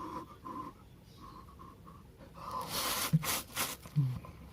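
A person eating noodle soup, with one long noisy slurp a little past halfway and a few short sharp sounds of eating after it.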